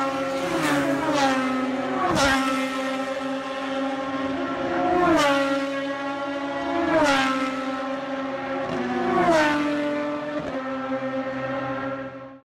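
Race car engines running at high revs, the pitch dropping sharply about six times and holding level in between; the sound cuts off suddenly near the end.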